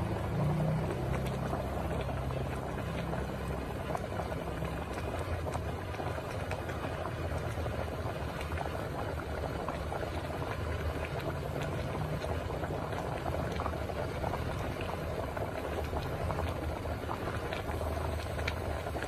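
Pot of sour fish curry broth at a rolling boil on a gas burner: steady bubbling with many small pops, over a steady low rumble.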